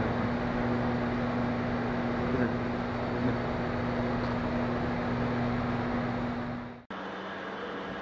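Steady drone of factory machinery with a low humming tone. Near the end it cuts off abruptly and gives way to a quieter, different hum.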